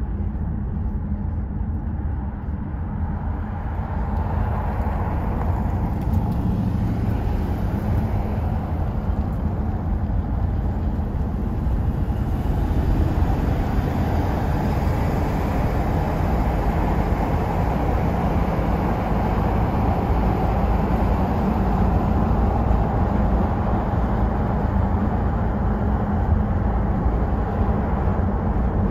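Wind rushing through an open car window and road noise of the moving car, heard from inside the cabin; it grows somewhat louder a few seconds in.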